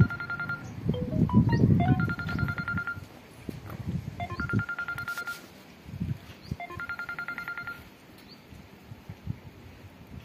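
A short electronic tune repeating four times, about every two and a half seconds: a few quick stepped notes climbing, then one held warbling note. It sounds like a phone ringtone. Low rustling noise sits beneath it for the first few seconds.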